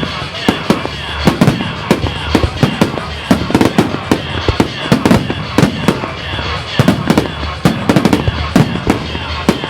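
Aerial firework display: shells bursting in quick succession, about two or three sharp bangs a second, over a continuous background rumble.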